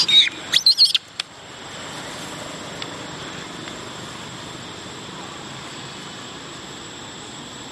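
Young macaque giving a quick series of shrill, pitch-bending screams in the first second as another monkey grabs and wrestles it. After that only a steady background hiss.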